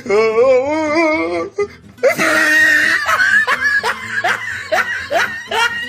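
Meme sound effects with music: a wavering, wobbling pitched sound, then a short noisy burst about two seconds in, then a person laughing in quick repeated 'ha-ha' bursts, about two or three a second.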